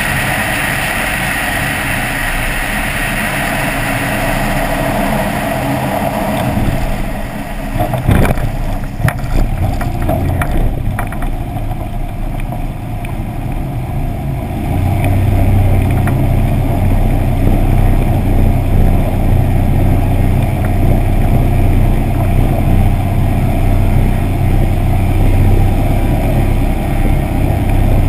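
Aviat Husky light plane on approach, its piston engine and propeller running steadily under rushing air. About eight seconds in, a cluster of knocks and bumps as the bush wheels touch down and roll over rough grass; from about fifteen seconds in the engine gets louder with a steady low drone as the plane rolls along the strip.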